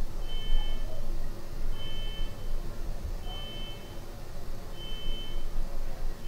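Electronic beeper sounding a steady high beep over and over, each beep just under a second long, coming about every second and a half, over a low background rumble.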